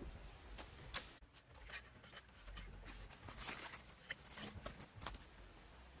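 Faint, scattered clicks, taps and creaks of bamboo poles being handled and climbed on.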